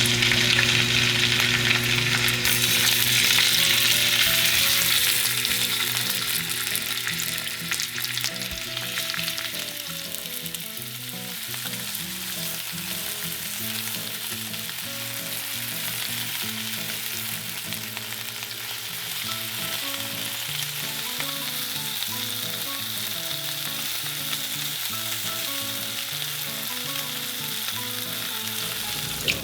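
Food sizzling and frying in a hot pan, with some stirring. The sizzle is loudest over the first few seconds, then settles to a steadier, softer hiss.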